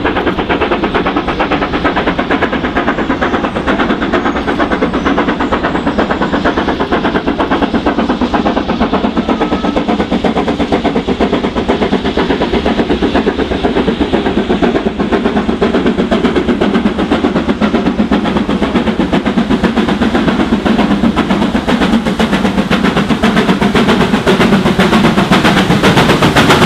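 BR Standard Class 7 'Britannia' Pacific No. 70000 steam locomotive working hard as it hauls its coaches, with a rapid, steady beat of exhaust chuffs. It grows louder over the last few seconds as it draws near.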